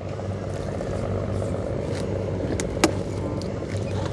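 Small boat engine running steadily with a low hum, and one sharp click about three seconds in.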